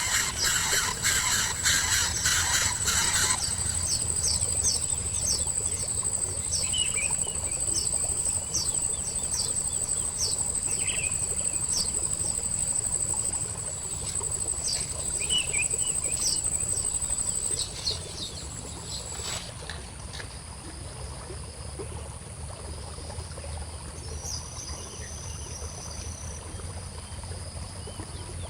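Outdoor ambience: insects trilling with a steady high-pitched buzz, and scattered short bird chirps over it. A louder rhythmic sound, apparently the tail of music, plays for the first three seconds and then stops.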